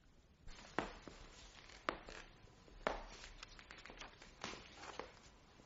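Quiet pause in an old radio recording: low background hiss broken by a handful of sharp clicks at irregular intervals.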